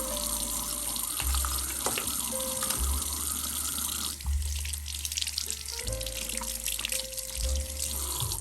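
Tap water running into a sink, with small splashes, over soft background music with held notes and a low bass.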